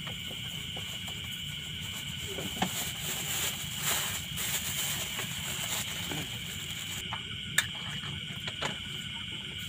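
Night insects, crickets among them, chirping steadily at a high pitch. Over them a plastic bag crinkles for a few seconds in the middle, and then come small clicks from a container being handled, with one sharp click about seven and a half seconds in.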